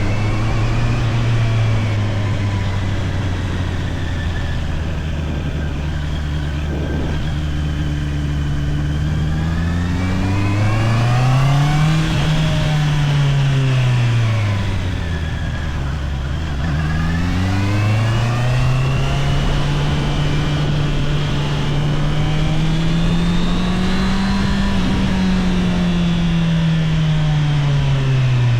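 Honda CBR650R's inline-four engine on its stock exhaust, ridden through changing throttle. The engine note holds steady, rises and falls back about midway, then climbs again and drops near the end.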